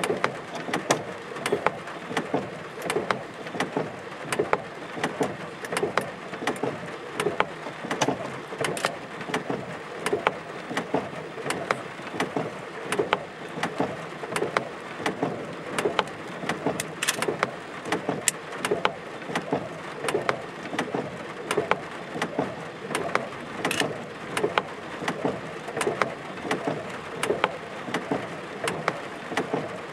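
Rain falling during a thunderstorm: a steady hiss of rain with irregular sharp taps of drops striking a hard surface close by, two or three a second. No thunder is heard.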